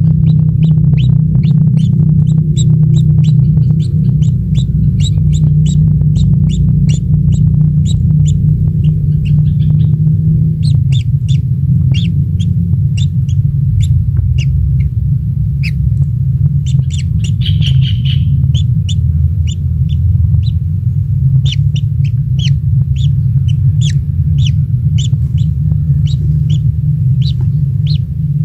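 Kingfisher chirping: a long run of short, high, falling chirps, roughly two a second, over a loud steady low hum.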